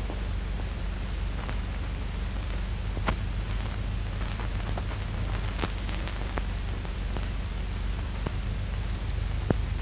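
Steady hiss and low hum of an old film soundtrack, with a few scattered, irregular clicks and a sharper one near the end.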